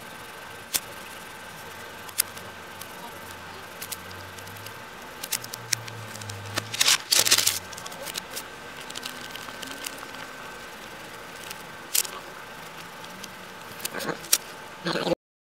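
A spiral-bound paper notebook handled close up: scattered small clicks and taps of hands on the paper and a loud rustling page turn about seven seconds in, over steady background hiss. The sound cuts off suddenly near the end.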